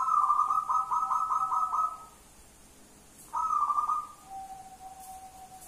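Local wild-type zebra dove (perkutut) cooing: a rapid run of staccato notes for about two seconds, a shorter run a second later, then one long, fainter, steady low note.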